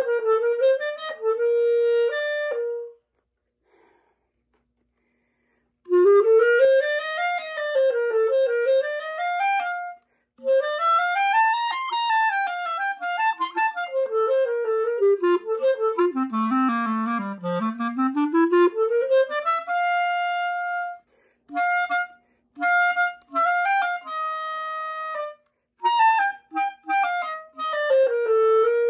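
Background music: a solo instrument playing a single melody line with quick runs up and down. It stops for about three seconds near the start, then plays on with a few short, detached notes a little past the middle.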